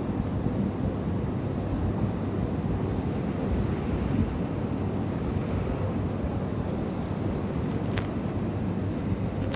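Steady low rumble of outdoor traffic noise with wind buffeting the microphone, and a faint tick about eight seconds in.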